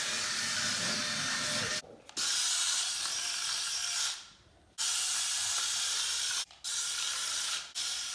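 SGILE wall-climbing RC car's suction fan running in wall mode, a steady high hiss that holds the car to the wall. It drops out briefly four times, once for most of a second, fading before it comes back.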